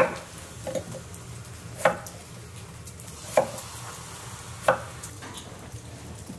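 Knife cutting potatoes on a cutting board: four sharp chops, about a second and a half apart, over a low steady hum.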